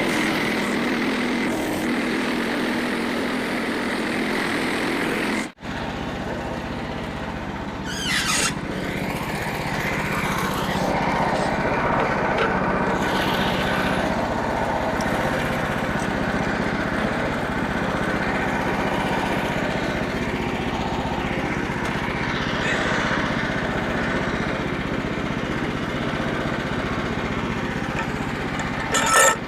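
Small gasoline engine of a Frontier OS27 portable bandsaw sawmill running steadily. The sound cuts out abruptly about five and a half seconds in and resumes at once, with a short scrape a few seconds later.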